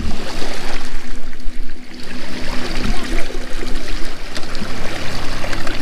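Water trickling and splashing: a steady rushing noise with small ticks scattered through it.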